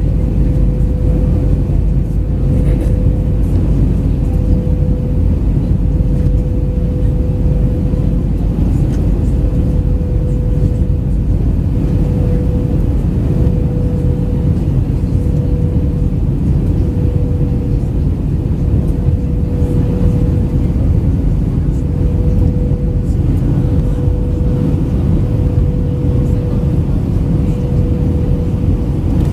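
Cabin noise of an Airbus A319-112 in flight: a loud, steady low rumble of airflow and CFM56 engines, with a constant hum holding one pitch above it.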